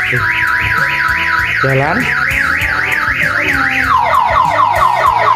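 Mini train ride's electronic siren warbling up and down about four times a second as the train sets off, switching near the end to a different falling wail.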